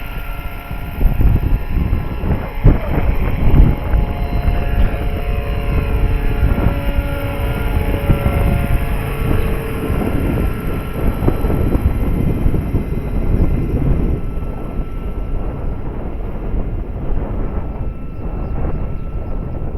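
Big electric RC scale helicopter (Eurocopter BK117 model) in flight: a steady whine from its electric motor and rotors that fades toward the end, under heavy wind buffeting on the microphone with strong gusts near the start.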